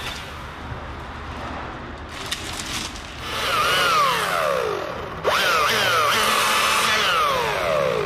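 Chainsaw running and revving up and down, its pitch repeatedly rising and falling. It is quieter for the first three seconds, comes up to high revs, and turns abruptly louder about five seconds in.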